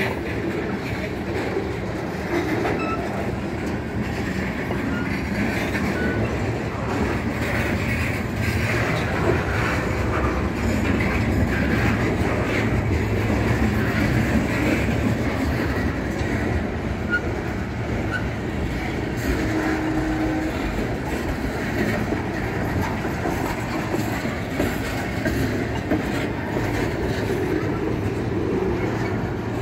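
Freight cars of a manifest train rolling past close by: tank cars, covered hoppers, boxcars, then low well cars. Their steel wheels run on the rails in a steady, unbroken din.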